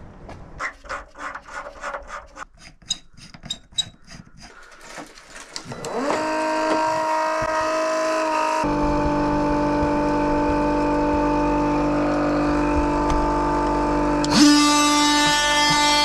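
A run of light clicks and knocks, then a cordless transfer pump spins up about six seconds in and runs steadily, its tone shifting a few seconds later as it draws water to drain the water heater. Near the end a second cordless power tool starts with a louder, higher whine over it.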